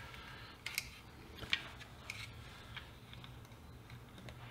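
Light clicks and taps of small plastic and metal parts, spread out and unevenly spaced, as fingers work the circuit board of a 1964 Hitachi TH-620 pocket transistor radio loose from its plastic case.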